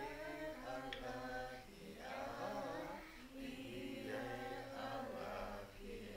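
Quiet chant-like singing, a voice holding long notes in phrases of a second or two with short pauses between.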